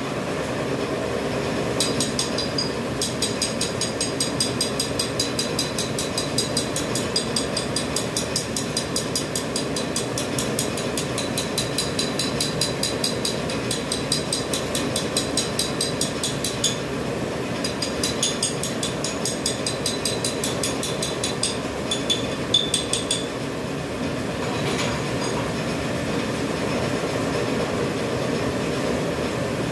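Automatic dental-mask making machine running: a steady mechanical hum with a fast, regular clicking on top. The clicking breaks off briefly past the middle and stops about three-quarters of the way through, leaving the steady hum.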